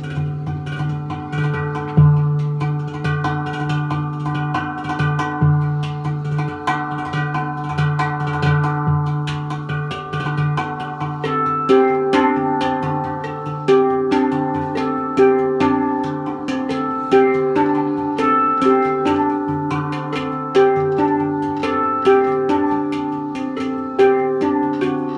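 Instrumental sound-healing music: ringing struck notes with a metallic, steelpan-like tone over a steady low drone. About halfway through, the notes settle into a short melodic figure that repeats roughly every one and a half seconds.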